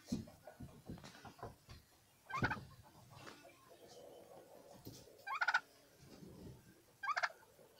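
Domestic turkey toms gobbling: three short gobbles, each a quick run of rapid notes, about two seconds in, in the middle, and near the end.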